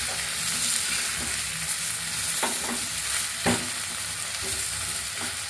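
A spatula stirring small puffed-rice dumplings (pori kozhukkatta) in a steel pan over a steady sizzle of the spiced oil, with a few scraping strokes of the spatula against the pan.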